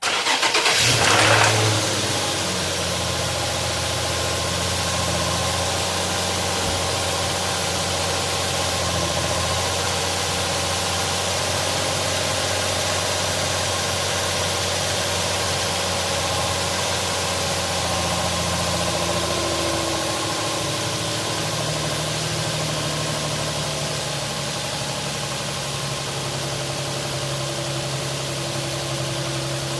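Infiniti EX35's 3.5-litre VQ35HR V6 starting with a brief flare of revs, then idling steadily; its low note shifts about two-thirds of the way through. At start-up the owner hears what sounds like a connecting-rod knock that fades as oil pressure builds, and he puts it 90% down to worn rod bearings.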